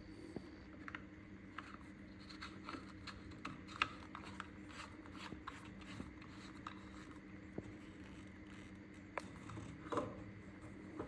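Faint, scattered small clicks and light scraping of hands handling small parts, over a faint steady low hum.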